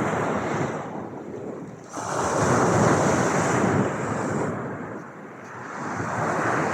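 Ocean waves washing in: one wave fades, a new one breaks sharply about two seconds in, and another builds near the end.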